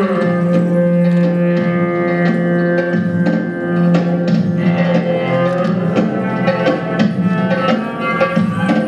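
Live music with drums beating a quick rhythm over steady held notes.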